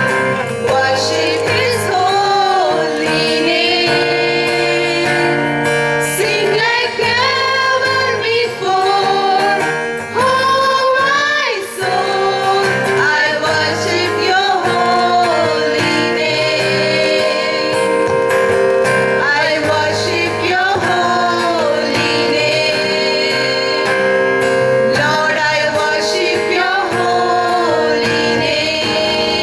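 A choir of women's voices singing a prayer song, accompanied by guitar.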